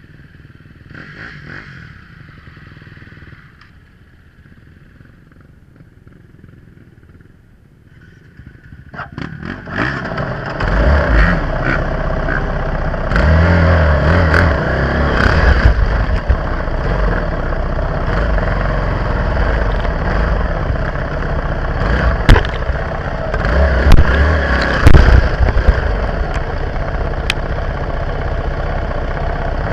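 Dirt bike engine: faint at first, then about nine seconds in it turns loud and keeps running hard. Sharp knocks and scrapes come through near the end.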